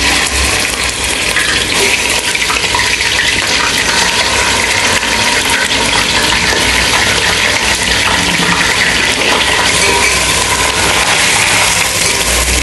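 Mutton shank pieces and marrow bones sizzling in hot oil in a steel pot: a loud, steady hiss that starts suddenly as the meat goes in.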